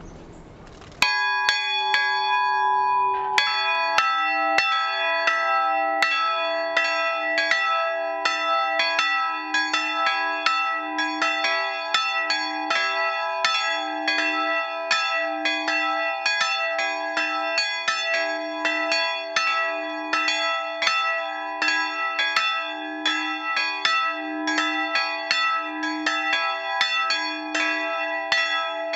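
Two bronze church bells, cast in 1913 by Schilling & Söhne of Apolda and tuned to e'' and gis'', swinging and ringing. One bell starts about a second in and the second joins about two seconds later, after which their strikes overlap in a continuous, uneven peal.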